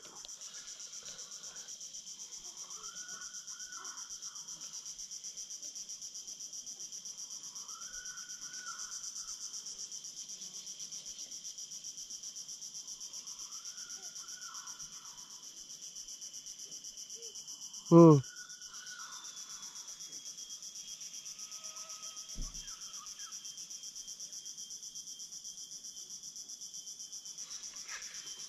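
Steady, high-pitched insect chorus with a fine pulsing rhythm, over soft calls repeating every five seconds or so. About two-thirds of the way through, one short loud sound sweeps steeply down in pitch, and a small click follows a few seconds later.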